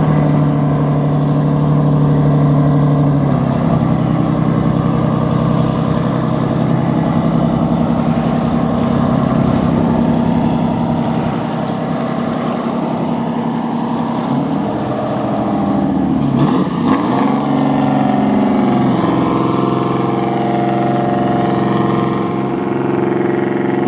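Boat engine running steadily and loudly. Its pitch steps down about three seconds in, then dips and rises again in the middle.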